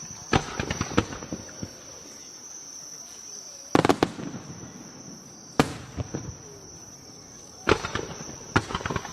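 Aerial firework shells bursting: irregular sharp bangs a second or more apart, some followed by crackling, the loudest cluster a little under four seconds in. A steady high-pitched insect trill, likely crickets, runs underneath.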